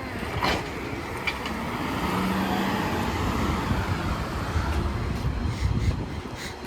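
Road traffic noise with a motor vehicle's engine running steadily, and a few sharp clicks, the first about half a second in.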